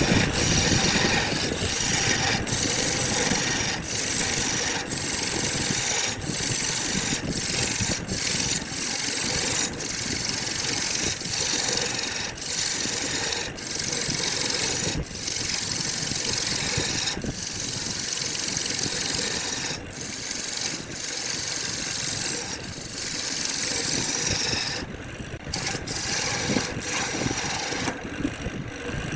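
A tool rubbing and scraping on wood, a steady abrasive noise broken by brief pauses about once a second, with two longer breaks near the end.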